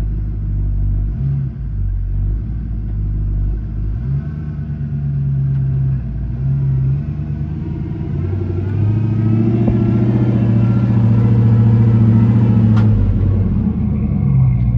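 1989 Ford F-250's bored 351 Windsor V8 with GT40 iron heads and a Comp Cams XE254 flat-tappet cam, breathing through shorty headers and a Flowmaster 40 series exhaust, running at low speed under light throttle as the truck drives slowly up close. The engine note steps up a couple of times and grows louder from about nine seconds in.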